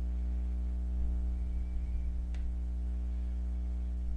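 Steady electrical mains hum, with one faint click about two seconds in as a key is pressed on a graphing calculator.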